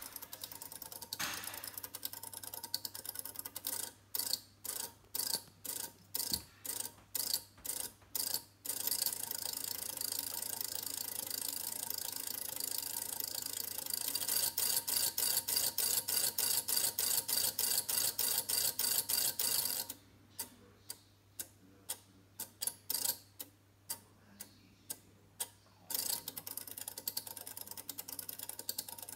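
Electromechanical seven-segment display board from an old petrol pump, its segments clicking over as it runs through its display patterns. Mostly a rapid, continuous clatter of clicks, broken by two stretches of short separate bursts of clicks, a few seconds in and again about two-thirds of the way through.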